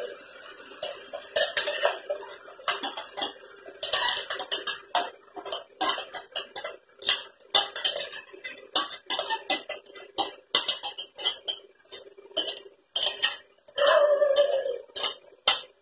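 A spoon scraping and knocking against the inside of a mixer-grinder jar while ground masala paste is emptied into a pan: an uneven run of short clinks and scrapes, several a second, with a louder clatter near the end.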